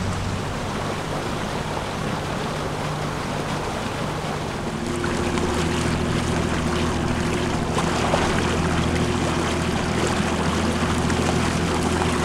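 Boat's outboard motor running steadily under way, over the hiss of water and wind. About five seconds in, the engine note shifts and grows a little louder.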